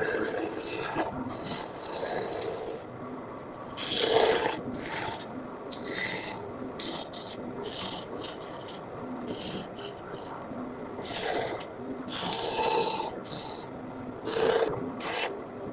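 Hand carving tool cutting into a wooden printing block: a series of short, rough scraping strokes, some brief and some drawn out for about a second.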